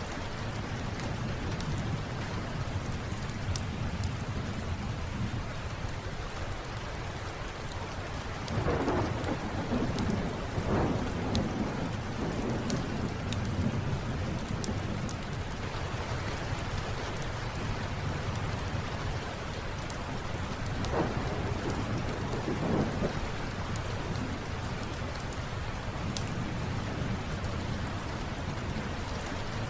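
Steady rain with low rolls of thunder, swelling loudest about nine to eleven seconds in and again around twenty-one to twenty-three seconds. Sparse faint sharp ticks run through it.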